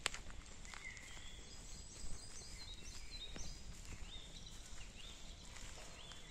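Small songbirds chirping in quick, short high notes through the middle, over a walker's footsteps on a forest footpath, with a sharp step or twig snap at the start and another about two seconds in.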